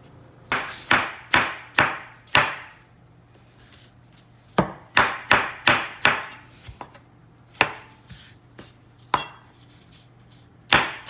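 Kitchen knife cutting cored tomatoes into small cubes, each stroke knocking sharply on the cutting board. The strokes come in irregular runs with short pauses between them.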